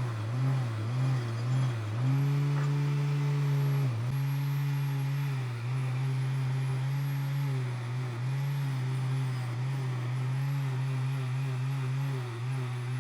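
An electric motor running steadily with a strong hum, its speed dipping briefly and recovering again and again, as under changing load.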